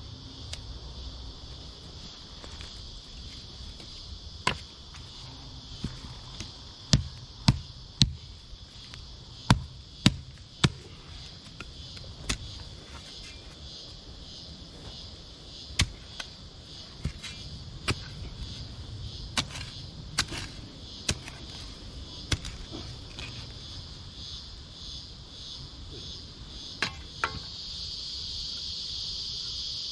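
Steady high-pitched chorus of insects in the bush, with a scattering of sharp knocks or snaps. The knocks are loudest and come closest together from about seven to eleven seconds in.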